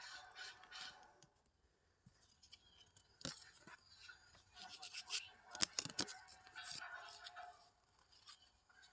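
Quiet handling of a tarot deck as the next card is drawn: soft rustling and sliding of cards, with a few sharp clicks about three, five and a half, and six seconds in.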